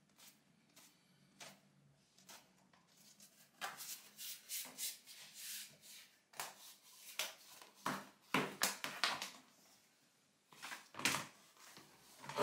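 Luxury vinyl tile planks being handled on the floor: scraping, tapping and scuffing as the planks are picked up and slid along a straight edge. The sounds come in clusters from about three and a half seconds in, loudest near the end.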